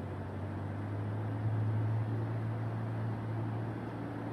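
Cessna 172's piston engine and propeller droning steadily inside the cabin on final approach. The low hum swells slightly about a second and a half in.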